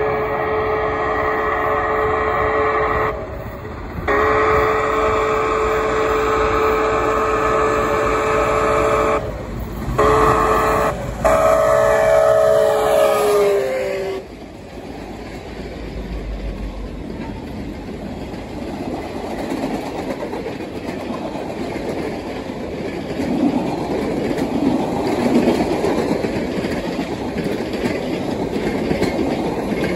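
Canadian Pacific 2816, a 4-6-4 Hudson steam locomotive, blowing its steam whistle in a long, long, short, long grade-crossing signal, the pitch dropping slightly as it passes at the end of the last blast. Then its passenger cars roll by with a steady rumble and clatter of wheels on the rails.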